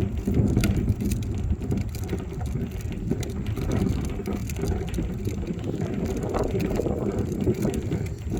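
Wheeled plastic garbage can being rolled over the ground: a steady low rumble with scattered small clicks.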